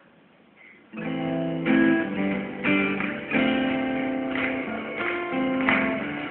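Acoustic guitar strumming chords, coming in about a second in after a brief near-quiet pause: the instrumental intro of a live pop song before the singing begins. Heard as recorded off a television broadcast, with the treble cut off.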